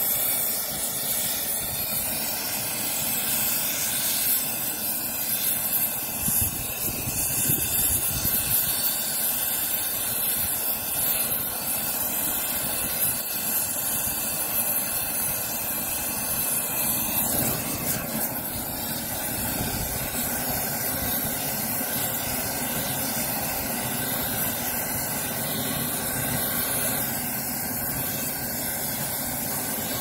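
Pump driving a hydraulic puller, running steadily with a hissing, rushing noise; its sound shifts slightly about seventeen seconds in.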